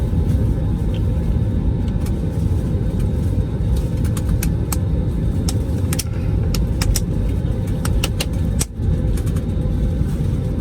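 Casino floor background noise: a steady low rumble with faint sustained electronic tones from slot machines, and scattered sharp clicks, most of them in the second half.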